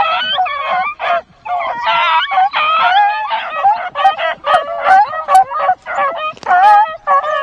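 Several beagles baying and yelping in high, wavering cries, overlapping at first and then coming as separate short yelps about twice a second. The hounds are bawling over a freshly killed rabbit held up to them.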